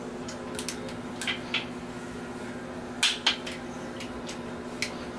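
Sharp metallic clicks and clinks, about half a dozen, the loudest a quick pair about three seconds in, from a torque wrench and socket as the connecting-rod cap bolts of a 440 Mopar big-block are torqued. A steady low hum runs underneath.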